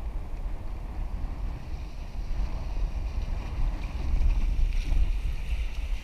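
Wind buffeting the microphone with a deep rumble, over choppy water sloshing. About four seconds in it grows louder and hissier as the kiteboard gets moving and throws spray.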